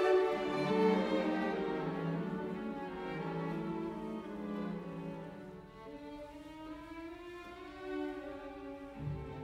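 Background music of bowed strings, violin and cello, playing slow held notes; it grows softer partway through and swells again near the end.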